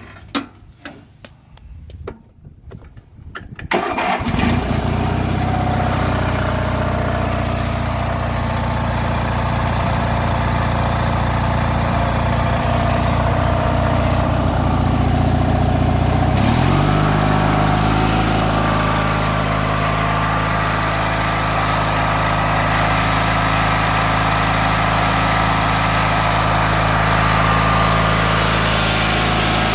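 A Briggs & Stratton 19.5 hp opposed-twin engine on a Craftsman LT1000 lawn tractor starts about four seconds in, after a few seconds of clicking, then runs steadily. About halfway through it steps up to a faster steady speed as the throttle is opened.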